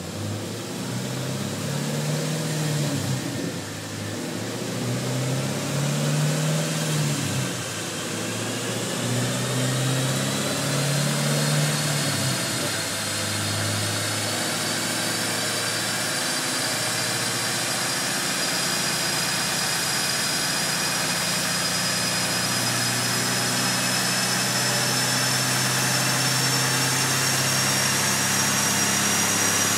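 2010 Chevrolet Camaro engine running on a chassis dyno, its revs rising and falling several times over the first twelve seconds, then running steadily at light load. A high whine from the tyres spinning on the dyno roller climbs slowly in pitch as the wheel speed builds.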